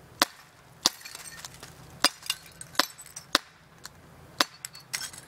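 Wingun 321 CO2 semi-automatic airsoft gun firing about six sharp shots at irregular intervals over a few seconds, with BBs striking a glass vase and shattering it, and smaller clicks of glass between the shots.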